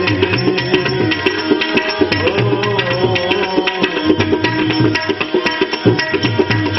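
Instrumental interlude of a devotional bhajan: tabla playing a quick, steady rhythm under sustained melody notes.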